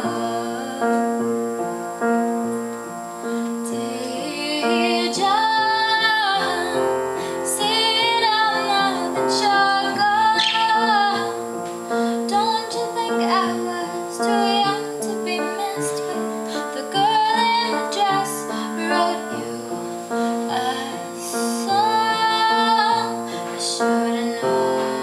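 Music: a woman's voice sings a slow melody with long held notes and vibrato over an instrumental accompaniment.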